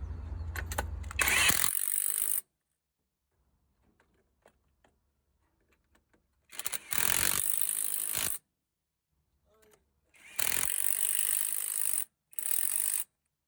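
A diesel truck engine runs with a low rumble and stops about two seconds in. Then come several loud bursts of hissing, one to two seconds each, like an air tool or air blower, with near silence between them.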